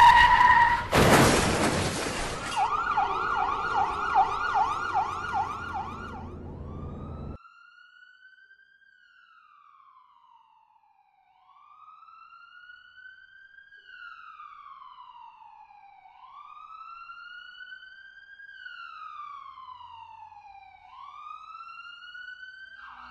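A tyre screech cut off by a crash about a second in, followed by an emergency-vehicle siren: a fast yelp for several seconds, then a fainter, slow rising-and-falling wail.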